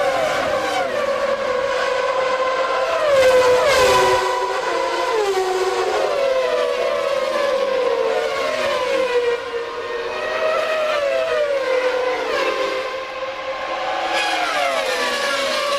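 Formula One racing car engines at high revs, their pitch repeatedly climbing through the gears and dropping on downshifts as cars race by. The loudest moment is a close pass about three to four seconds in.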